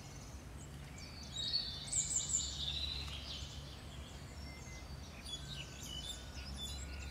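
Small birds chirping and singing, with a cluster of high chirps about one to three seconds in and scattered calls later, over a steady low background hum.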